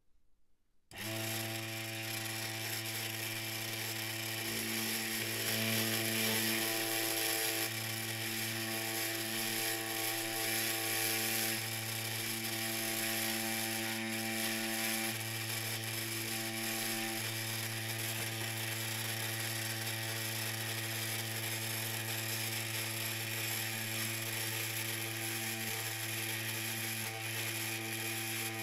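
A mini lathe's motor starts about a second in and runs with a steady hum while a file is held against the spinning wooden mast, squaring up its edge.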